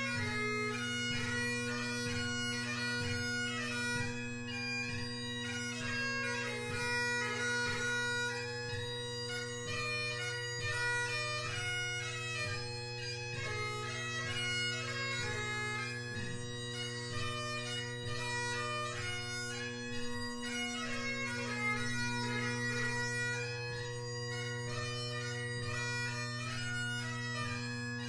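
Great Highland bagpipe playing a tune: a steady drone chord beneath a fast chanter melody with quick ornamental notes. The set has McCallum drones and a G1 blackwood chanter.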